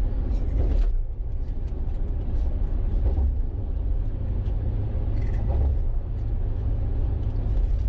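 Steady low rumble of a car's tyres and engine, heard from inside the cabin while cruising on an expressway at about 55 mph.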